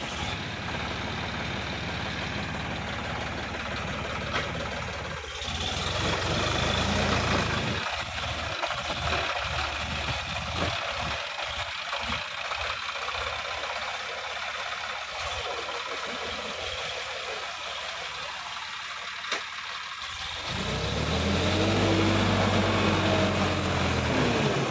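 Sonalika DI 50 RX tractor's diesel engine working hard as the tractor climbs a steep bank out of a pond, stuck and rearing with its front wheels off the ground. Near the end the engine revs up and then drops back down.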